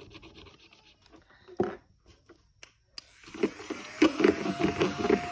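A knock, then a click, then a small motor starting up about three seconds in: a steady whir with a rhythmic clatter of about four or five pulses a second.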